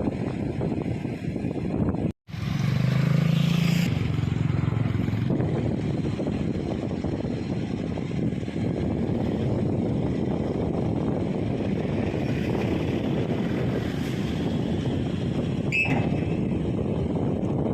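An engine running steadily under heavy wind noise on the microphone. The sound breaks off sharply for an instant about two seconds in, then an engine hum stands out for a couple of seconds before blending back into the steady rumble.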